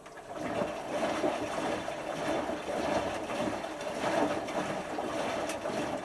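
Water rushing and sloshing inside a Hotpoint HF8B593 washing machine in the cool-down phase of a 90°C cotton wash, when cold water is let in to bring the hot wash water down. It starts suddenly and fades near the end.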